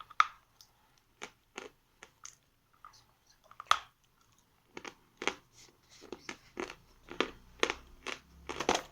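A person biting and chewing lumps of edible chalk: a series of irregular sharp crunches, sparse at first and coming about twice a second in the second half.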